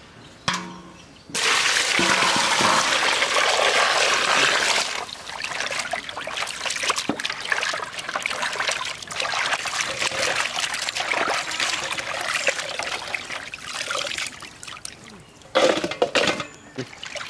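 Water rushing into a large aluminium basin of cleaned climbing perch, then hands swishing and sloshing the fish about in the water to wash them, with a few sharper splashes near the end as fish are lifted out.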